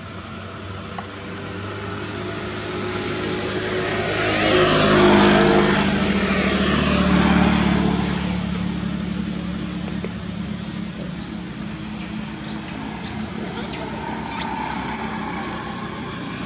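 A motor vehicle drives past. Its engine and road noise swell to a peak about five seconds in, drop in pitch as it goes by, and fade away. Near the end come several short, high-pitched chirping calls.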